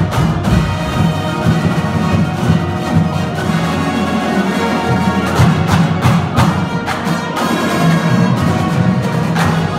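High school marching band playing full ensemble: brass and sousaphones holding chords over snare drums and bass drums, with sharp drum hits throughout.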